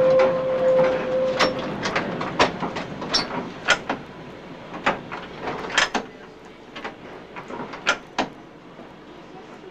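Electric tram running slowly on street track as it nears the end of the line: a steady hum stops about a second and a half in, then irregular sharp clicks and knocks come from the running gear as the running noise dies away.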